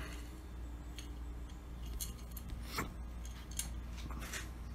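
Small plastic hose fittings being handled in the hands: a few light, scattered clicks and taps about a second apart, over a steady low hum.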